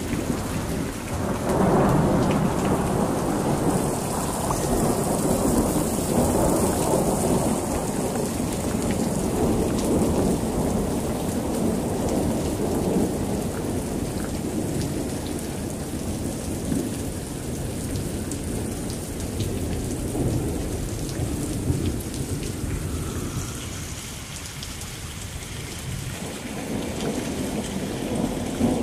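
Heavy rain pouring steadily, with water running off a roof edge. A low rolling rumble swells about two seconds in and slowly dies away over some ten seconds.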